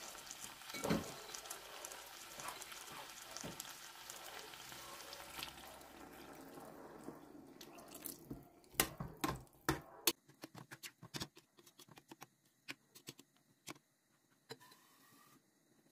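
Water being poured into a pot of broad beans fried in tomato paste: a steady pour for about seven seconds, then a scatter of light clicks and knocks from the pot and utensils.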